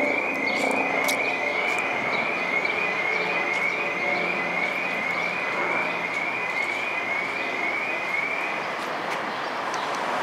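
Steady city street and traffic noise, with a repeating high electronic chirp, a short rising tone about twice a second, that stops near the end.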